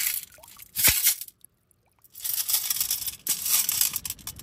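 Pebbles and shell bits rattling and grinding in a perforated stainless-steel sand scoop as it is shaken and the gravel is sifted. There is one sharp knock about a second in and a brief quiet gap, then a long, dense rattle in the second half.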